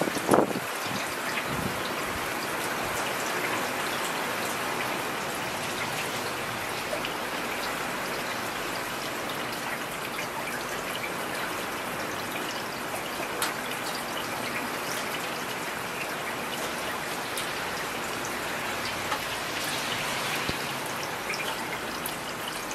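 Heavy rain falling steadily: a dense, even hiss with scattered close drop hits. A short low rumble in the first half-second is the loudest moment.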